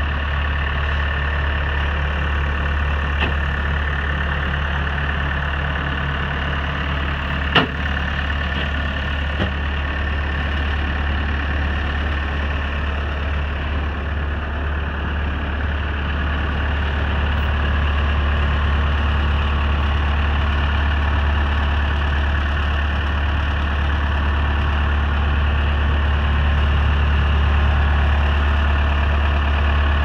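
A Case 90XT skid steer's diesel engine idling steadily, growing a little louder in the second half. A single sharp click sounds about seven and a half seconds in.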